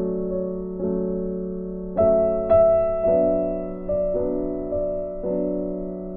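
Slow background piano music: soft chords struck every half second to a second, each fading away over a held low note.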